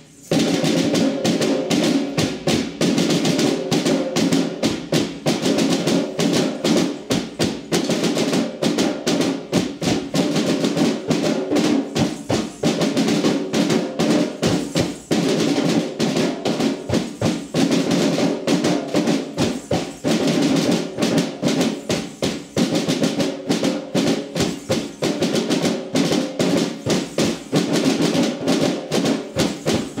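Snare drums struck with sticks and hand-played djembes drumming together in a loud, dense, fast rhythm.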